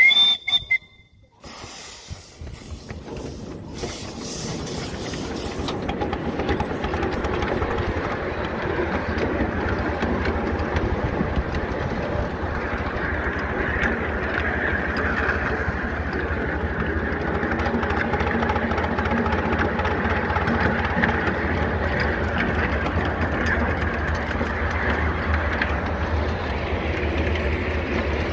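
7.25-inch gauge Bagnall saddle tank miniature steam locomotive under way: a brief high tone at the very start, a burst of steam hiss in the first few seconds, then steady running noise as it travels along the track.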